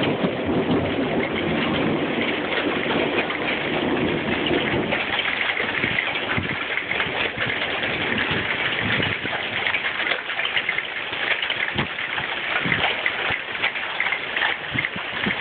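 Heavy rain mixed with pea-size hail hitting a surface: a dense, steady hiss thick with small sharp ticks. A low rumble lies under it for the first few seconds, then fades.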